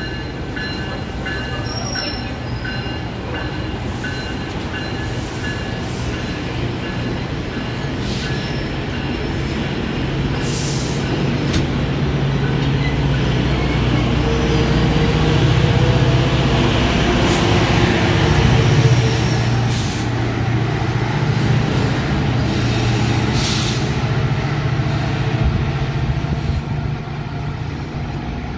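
GO Transit bilevel commuter train pulling out along the platform: a steady rumble of the cars rolling on the rails with a low hum beneath, swelling to its loudest past the middle and easing off toward the end. Thin high tones fade out in the first few seconds, and sharp clicks come through from about ten seconds in.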